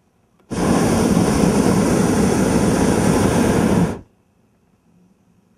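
Hot air balloon's propane burner firing in one loud, steady blast of about three and a half seconds, starting and cutting off abruptly.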